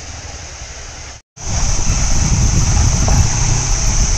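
About a second of faint steady background noise cuts off abruptly, and a modified off-road jeep's engine follows, running steadily as it crawls over a rocky trail, with a steady high hiss over it.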